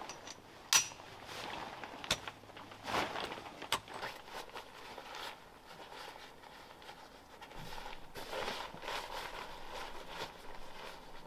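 Canvas awning-room fabric rustling as it is handled and fitted to a vehicle awning, with three sharp clicks or knocks in the first four seconds, the first the loudest.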